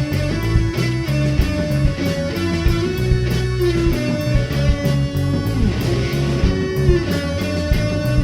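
Psychedelic rock band playing an instrumental passage: electric guitars, bass and drums keeping a steady beat, with no singing.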